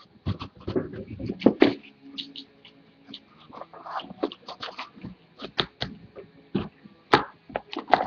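Trading-card boxes being handled and set down on a table: irregular knocks, taps and clicks.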